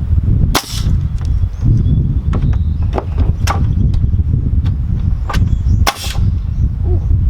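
DeWalt DW325PL pneumatic framing nailer driving nails into 2x4 studs: two loud shots about five seconds apart, with several lighter clacks between them, over a steady low rumble.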